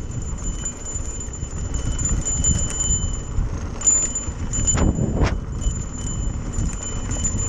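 Mountain bike running fast downhill over rough trail: wind buffeting the camera microphone in a steady rumble, with the bike rattling and ticking throughout. A short falling squeal comes about five seconds in.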